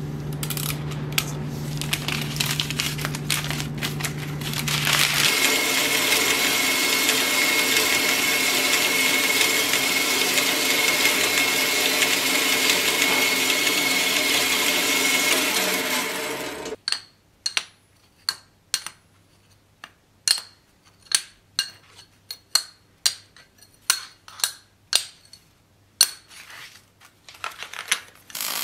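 Metal-cutting band saw running steadily through steel bar stock with a thin high whine for about eleven seconds, then stopping abruptly. After it, sharp metallic clinks come about once a second as cut steel strips are knocked into line in a stack on an anvil. At the start there are a few light clicks over a low hum.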